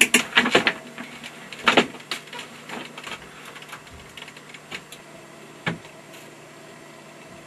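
Clicks and knocks of someone settling at a desk and working a computer keyboard and mouse: a quick cluster in the first two seconds, scattered clicks after, and a single click just before six seconds in, over a faint steady hum.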